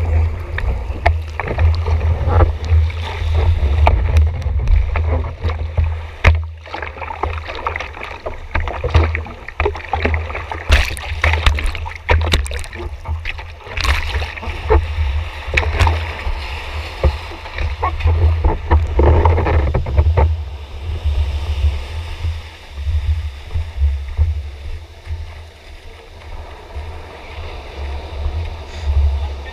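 Sea water sloshing and splashing over a surfboard-mounted action camera as the board is paddled through the surf, with a heavy low rumble of water buffeting the camera housing and many sharp splashes, easing off in the later part.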